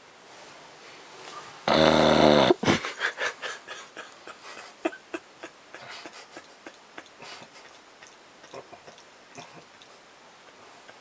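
One loud, pitched snore-snort of under a second about two seconds in, followed by a run of small clicks and smacks that grow fainter and sparser.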